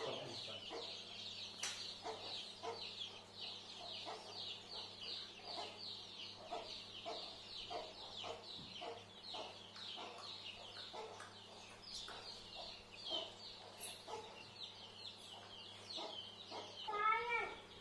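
Many small birds chirping continuously, a dense run of short, high, falling chirps. Near the end a louder arching call sounds a few times in quick succession.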